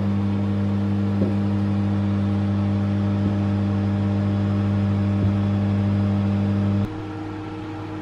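LG microwave oven running with a steady low hum while it cooks rice in a plastic microwave rice cooker. The hum stops abruptly about seven seconds in.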